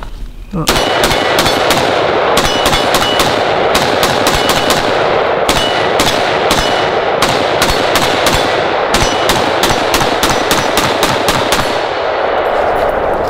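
5.56 AR-15 rifle (the ADM) fired in a long string of rapid semi-automatic shots, each crack echoing. The shooting starts about half a second in and stops shortly before the end.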